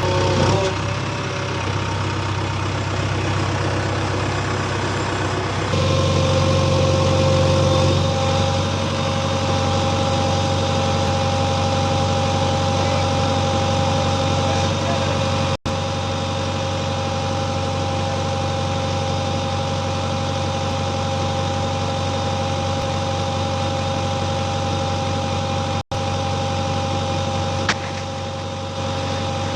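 JCB 3DX backhoe loader's diesel engine running steadily at low revs, its tone shifting a few seconds in.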